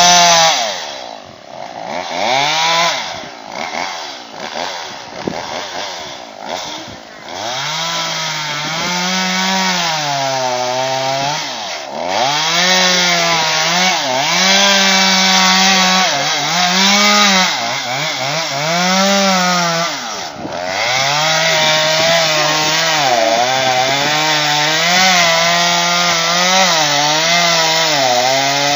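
Two-stroke chainsaw cutting into a dead white birch, its engine pitch sagging under load and picking back up again and again. At first it is revved in short spurts, then it runs in a long continuous cut.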